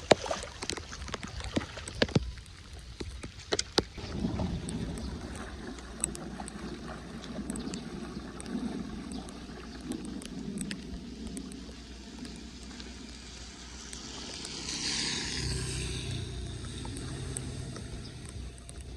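Shallow floodwater sloshing and swirling as someone wades through it, pushing a wheeled plastic bin. There are several sharp clicks in the first few seconds and a short louder swish of water about fifteen seconds in.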